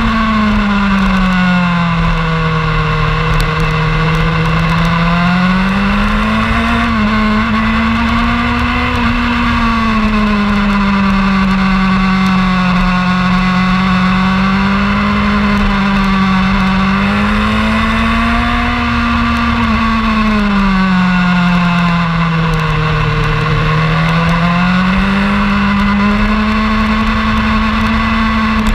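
Sport motorcycle engine running hard on a racetrack. Its pitch sinks and climbs again in slow swells, about four times, as the throttle is eased and rolled back on through the corners, with wind rumbling on the microphone underneath.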